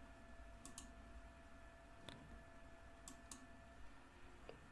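A few faint, separate computer mouse clicks over near-silent room tone.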